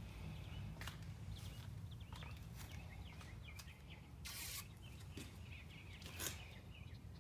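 Faint outdoor ambience: small birds chirping in the background over a steady low hum, with a few brief rustles and clicks of handling, the loudest about six seconds in.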